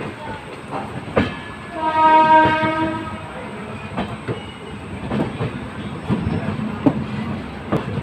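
Moving passenger train running over rail joints, with repeated sharp wheel clicks over a steady rumble while another train passes on the next track. About two seconds in, a WAP-7 electric locomotive's horn gives one steady blast lasting just over a second.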